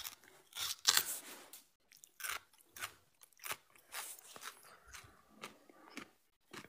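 Giant panda biting and chewing bamboo: a run of sharp, irregular crunches, roughly one or two a second, the loudest about a second in.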